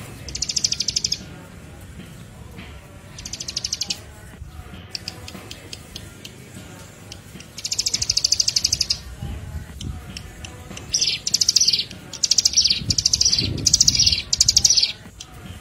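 A small songbird calling in rapid, buzzy trills, in bursts of about a second, then near the end a quick run of five short calls that each sweep downward in pitch. These are recorded lure calls for attracting wild birds.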